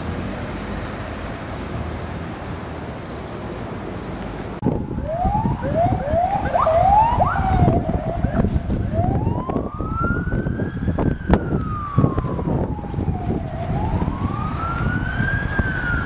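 Road traffic noise, then about four and a half seconds in an ambulance siren comes on. It gives a few seconds of quick rising yelps, then switches to a slow wail that rises and falls twice.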